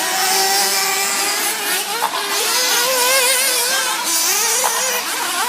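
Several RC racing buggies revving and whining as they race around the track, their overlapping pitches rising and falling as they accelerate and back off.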